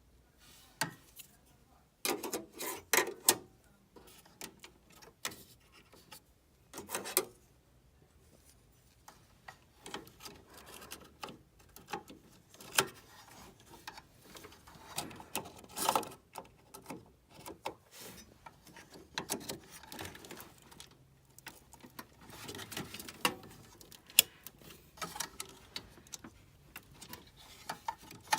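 Irregular clicks, taps and rubbing from small computer parts being handled during a RAM upgrade, such as memory modules and slot latches being fitted. The louder clusters come about two seconds in, around seven seconds, around sixteen seconds and around twenty-three seconds.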